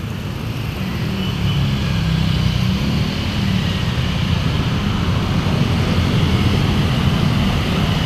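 Steady road-traffic rumble of an intercity coach's diesel engine driving past close by, mixed with the engines of a stream of motor scooters, growing a little louder over the first couple of seconds.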